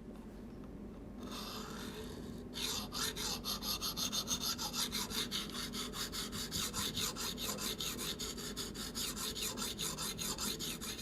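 Coarse 180-grit diamond bar rasping back and forth along a steel knife edge in a guided sharpener, working the marker-coated bevel to find the sharpening angle. It starts softly and from about two and a half seconds in settles into a steady run of quick strokes.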